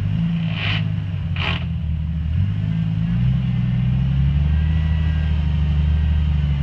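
Jeep Wrangler's engine working under load as the Jeep crawls over boulders, its low note stepping up and down with the throttle and getting a little louder from about three seconds in. Two short hissing rasps about a second in.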